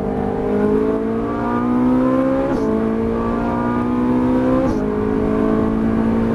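Ferrari 458 Italia's naturally aspirated V8 pulling hard under acceleration, heard from inside the cabin: the engine note climbs, drops sharply on a quick upshift about two and a half seconds in, climbs again, and drops on a second upshift about two seconds later before climbing once more.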